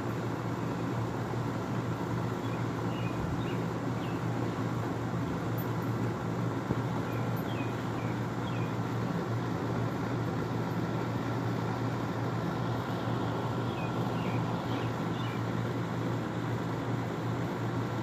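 Steady outdoor background: a constant low hum and rushing noise with a faint steady whine above it, and a few faint short chirps scattered through.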